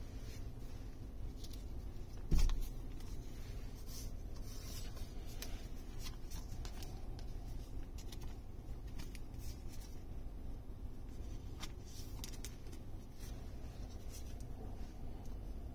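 Trading cards being slid into thin clear plastic sleeves and handled on a table: light rustling, rubbing and small clicks, with one dull thump about two and a half seconds in.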